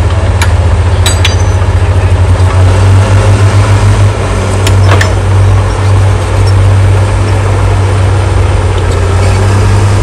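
Heavy diesel engines of a dump truck and bulldozers running with a loud, steady low rumble that throbs for a moment in the middle. A few short, sharp knocks come through near the start and about five seconds in.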